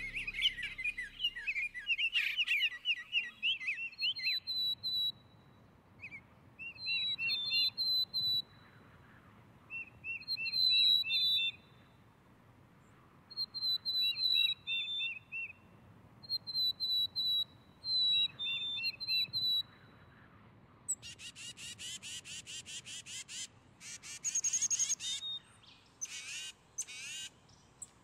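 Backyard songbirds calling in repeated short phrases of quick, high chirping notes, a new phrase every two seconds or so, with a run of harsher, raspy calls in the last quarter.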